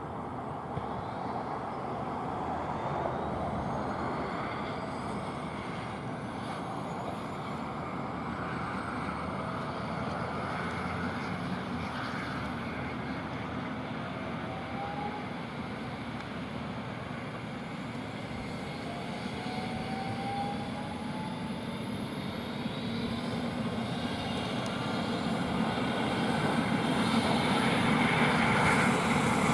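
Eurocopter EC135 helicopter's turbine engines running, with a high whine slowly rising in pitch. The sound grows louder toward the end, typical of the engines spooling up during start.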